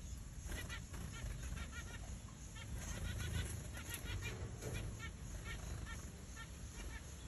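King quail (the bird kept as "button quail") with chicks under a brooding hen, giving short, soft peeping notes several times a second. The notes come in quick runs and thin out near the end.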